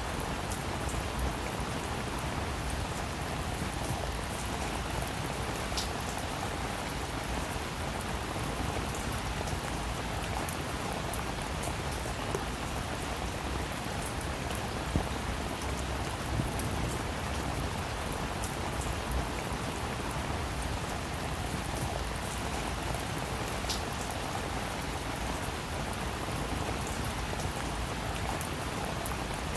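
Steady rain falling, an even hiss of rainfall with scattered individual drops pattering on a surface.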